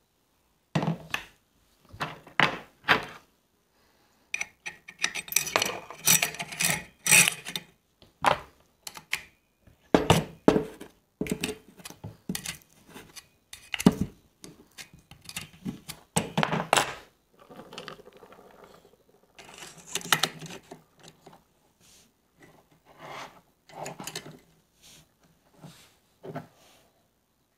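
Steel parts of a Gamo Shadow 1000 break-barrel air rifle being handled and fitted together: irregular metallic clicks, knocks and scrapes, with short pauses between.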